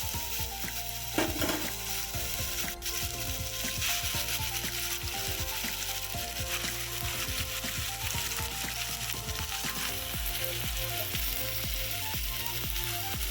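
Chicken pieces frying in hot sesame oil with onion and ginger-garlic paste in a kadai, sizzling steadily as they are sautéed and stirred, with occasional scrapes of the spoon against the pan.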